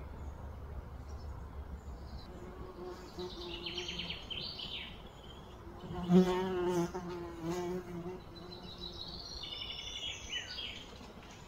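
A flying insect buzzing close by, wavering in pitch and loudest a little after halfway. High pulsed chirping comes twice, around three to five seconds in and again near the end.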